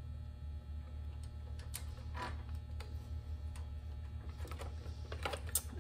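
Scattered light clicks and taps of a metal linkage rod being worked and pressed into a small plastic base on a Briggs & Stratton carburetor, coming more often near the end, over a low steady hum.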